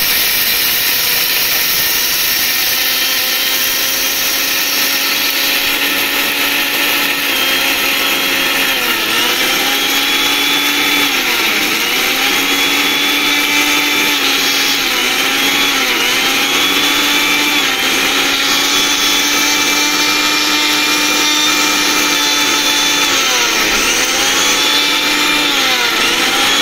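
Electric mixer grinder motor running at full speed, grinding hard dried chickpea dal into flour in a stainless steel jar. From about nine seconds in, its pitch dips briefly and recovers every second or two.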